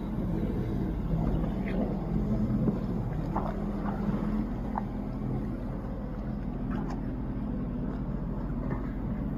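Jet ski engine running steadily, with water splashing and wind on the microphone.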